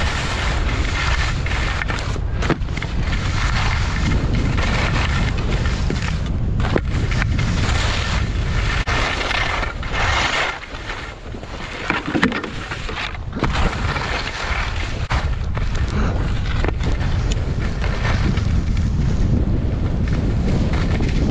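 Wind buffeting a GoPro Hero8's microphone during a fast ski descent, with skis hissing and scraping over packed snow in surges as they turn. The noise drops briefly about halfway through, then comes back with a sharp knock.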